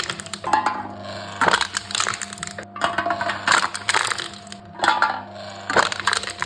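Aluminium cans being crushed in a can-crushing machine: a run of crackling, crumpling crunches, roughly one a second, over a steady low hum.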